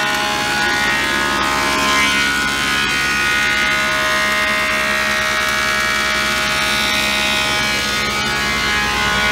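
A motor running at a steady speed, a buzzing whine made of many steady tones.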